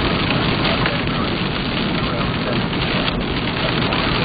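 Heavy rain pelting a moving car's windshield and roof, heard from inside the car as a steady, dense patter of drops over road noise.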